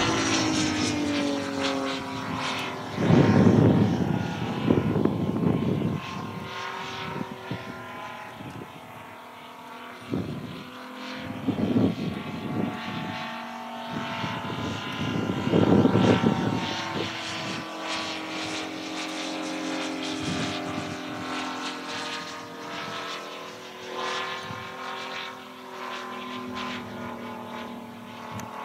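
Propeller engine of an aerobatic biplane droning overhead, its pitch rising and falling as it climbs, dives and passes. Loud low rumble comes in twice, about three seconds and fifteen seconds in.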